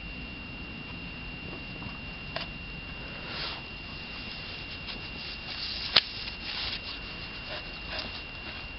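Quiet rubbing and scratching with scattered small clicks, one sharper click about six seconds in, over a faint steady high whine.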